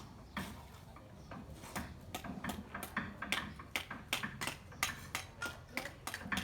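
Light, sharp taps and clicks of hard objects striking one another. They are sparse at first and settle into about three a second after about a second and a half.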